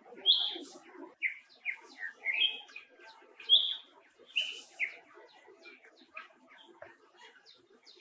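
Animal calls: many short, high chirps and squeaks, several overlapping, with a lower chatter underneath.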